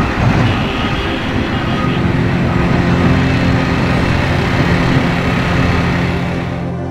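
Vehicle engines running steadily, a loud, even noise. Soft steady music tones come in underneath during the second half.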